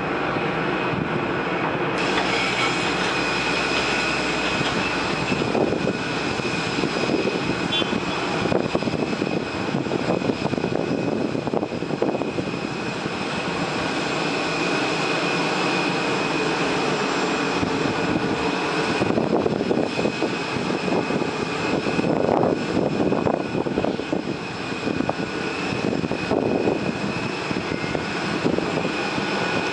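Jet airliner engine noise at an airport apron: a continuous rushing sound with a faint steady high whine running through it.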